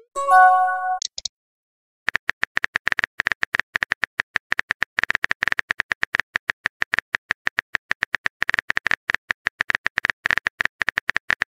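Texting-app sound effects: a short chime of several tones at the start, then after about a second of silence a long, rapid run of phone-keyboard typing clicks, several a second.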